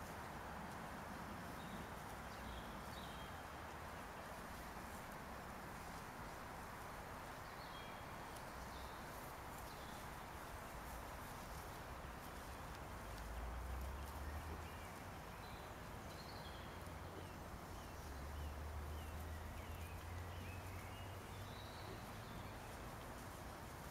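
Faint woodland ambience: wild boar piglets' light steps and rustling in dry leaf litter, with small bird chirps scattered throughout. A low rumble comes in twice, about 13 s and about 18 s in.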